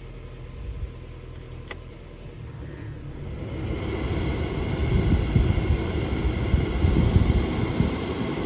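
Jeep Cherokee's replacement HVAC blower motor pushing air through the dash vents. The air rush swells from about three seconds in as the fan is turned up, then runs loud and steady over a low steady hum from the idling engine.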